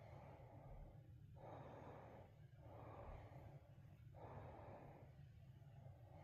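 Faint, rhythmic breathing of a teacup Yorkie puppy, soft breaths in and out about every second and a half, over a low steady hum.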